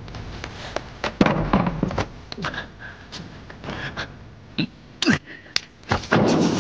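Martial-arts fight sound effects: a fast, irregular run of sharp hits and blows, a dozen or more in a few seconds.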